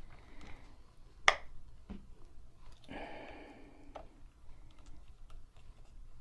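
Small clicks and taps of tools and metal parts being handled while a Singer 223 sewing machine is taken apart, with one sharp click about a second in and a brief scraping sound about three seconds in.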